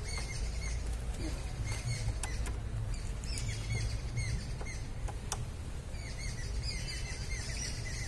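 Small birds chirping in quick repeated high notes, with a few sharp clicks as plastic push clips are worked loose.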